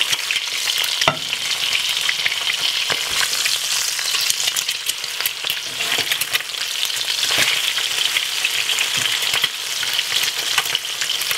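Eggs frying in hot oil in a nonstick frying pan: a steady sizzle full of fine crackling, with a few sharper clicks as a spatula turns and presses them in the pan.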